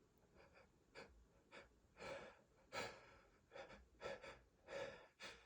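A man's short, sharp gasping breaths in a row, about eight of them, faint at first and louder from about two seconds in, as a sneeze builds up.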